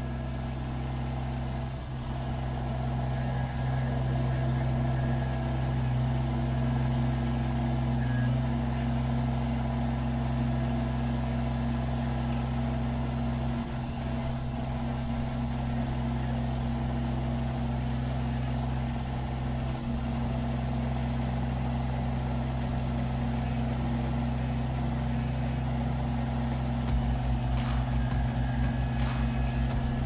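Kubota BX23S compact tractor's three-cylinder diesel running steadily while its backhoe is worked. Near the end a few sharp knocks sound over the engine.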